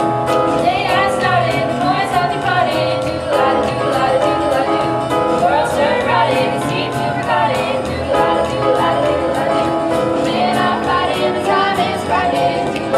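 Singing from a stage musical over sustained instrumental chords, with a light steady ticking beat.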